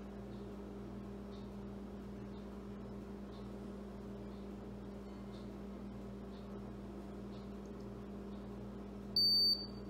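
Meade LX200GPS telescope's drive motors and gears slewing, gears freshly greased: a low hum pulsing evenly a little more than once a second. About nine seconds in it stops with a short high beep from the AutoStar II hand controller as the scope reaches its target.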